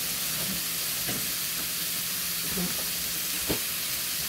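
Seasoned beef steaks frying in oil in a nonstick pan, a steady sizzling hiss. A single sharp click about three and a half seconds in.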